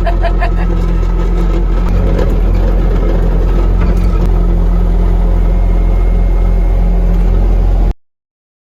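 Skid steer engine running steadily, with a few light clanks early on. It cuts off suddenly near the end.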